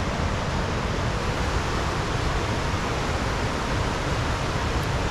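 Steady rush of a snowmelt-swollen creek tumbling over cascades and small waterfalls, an even wash of water noise.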